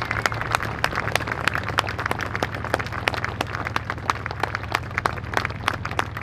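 Scattered applause: several people clapping unevenly, over a low steady hum.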